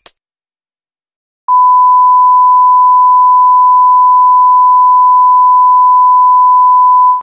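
A single steady, loud test tone, the reference tone played with SMPTE colour bars, starting about a second and a half in after silence and holding unchanged.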